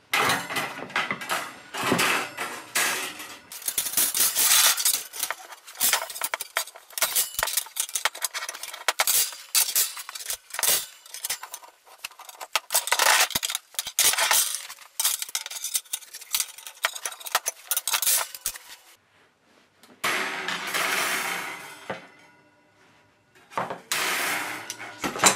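Bolt cutters snipping the steel wire rungs out of a chrome oven shelf one by one: sharp snaps mixed with the wire rack clinking and clattering on the worktop. The clatter stops for a moment late on, then starts again.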